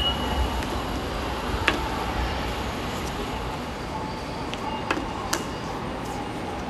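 A subway fare-gate card reader gives one short high beep as a transit card is tapped on it, then a few sharp clicks from the card against the reader. A steady station hum runs underneath.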